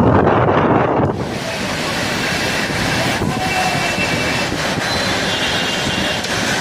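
Strong storm wind buffeting the microphone hard for about the first second, then a steady rush of wind and rain noise with a few faint high tones.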